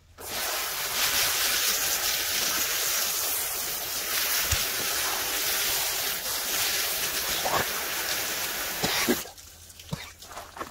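Water spraying from a pistol-grip hose nozzle onto a salmon to rinse it, a steady spattering hiss. It starts abruptly and cuts off suddenly about nine seconds in.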